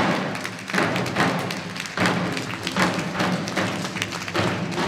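Shishi odori dancers' chest-worn drums struck in a slow, uneven beat of about one or two strokes a second.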